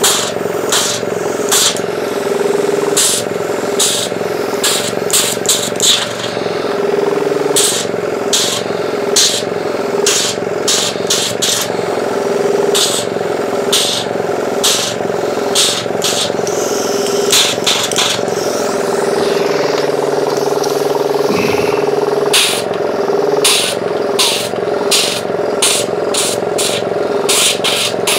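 Small air compressor running with a steady hum while an air blow gun on a coiled hose fires many short blasts of compressed air in quick clusters, blowing dust out of a laptop's cooling fans and heatsink.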